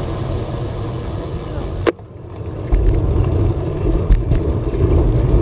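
Wind rumbling on the microphone with road noise from a moving bicycle. About two seconds in there is a sharp click, after which the sound briefly drops quieter before the rumble comes back louder.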